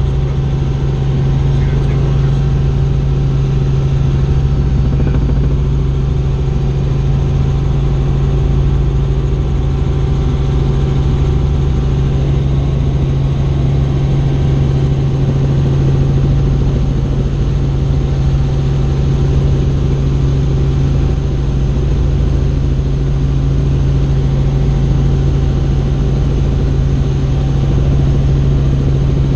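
Helicopter in steady flight: a loud, constant drone with a strong low hum.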